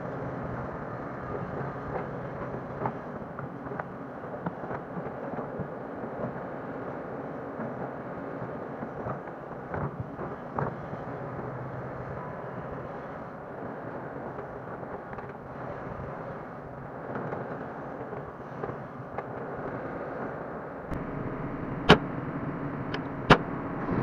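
Hyundai 180 hydraulic excavator's diesel engine running steadily while it works soil, with frequent small clanks from the bucket and tracks. Two sharp, loud metallic knocks come near the end.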